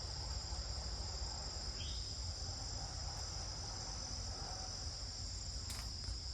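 Steady, high-pitched insect chorus: a continuous shrill drone with a faint low rumble beneath it.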